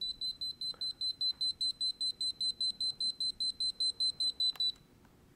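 Electronic buzzer of a handheld ZigBee alert receiver beeping rapidly, a high-pitched beep about four to five times a second, cutting off abruptly near the end: the alarm that signals a patient's call for help.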